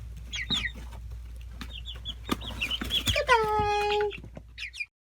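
Three-week-old chicks peeping: many short, high, falling chirps, with scattered sharp clicks. About three seconds in comes one longer, lower held call lasting about a second, and the sound cuts off abruptly near the end.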